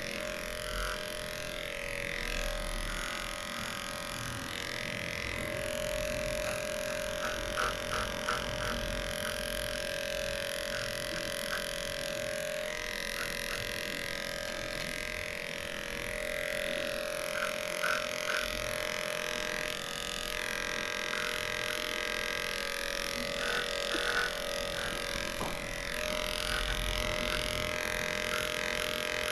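Electric pet clippers buzzing steadily as they shave a matted dog coat down close to the skin, with a few clusters of short faint ticks along the way.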